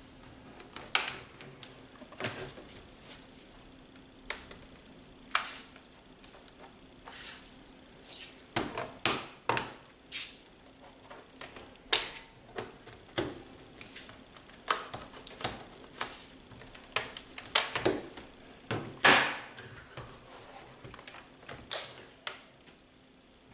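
Irregular plastic clicks and knocks from an HP laptop being handled as its battery latch is slid and the battery pulled out of its bay.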